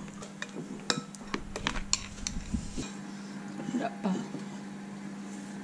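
Metal spoon stirring in a ceramic bowl, a quick irregular run of light clinks against the bowl that stops about halfway through, over a steady low hum.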